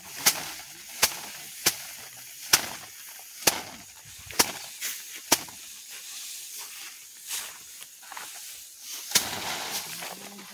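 Bundles of harvested rice stalks beaten by hand against a hard surface to thresh out the grain: a run of sharp slaps, a little more than one a second, for about five seconds, then softer knocks, then slapping again near the end.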